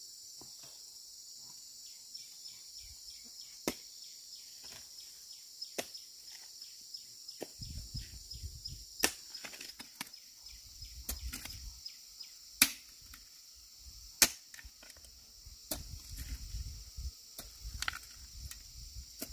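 Steady high-pitched insect chirring, over irregular sharp knocks and taps, a few of them loud, with bouts of low rumble in the second half.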